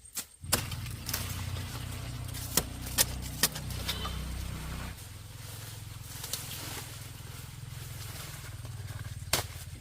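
A motor starts running suddenly about half a second in and keeps a steady low hum, its pitch dropping a little about halfway, with several sharp knocks or clicks over it.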